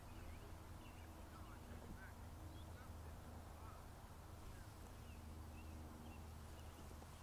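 Faint outdoor quiet: scattered distant bird calls, short and thin, over a low steady hum.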